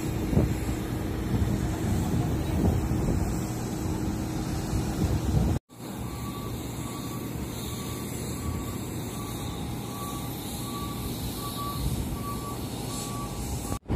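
Steady low engine rumble, broken by an abrupt cut about six seconds in. After the cut, a vehicle's reversing alarm beeps evenly, about three beeps every two seconds, over the rumble.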